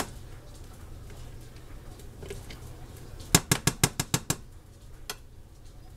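A metal spoon tapping and scraping against the rim of a stick blender's beaker to knock mayonnaise off: a quick run of about seven sharp taps a little past halfway, with single taps before and after.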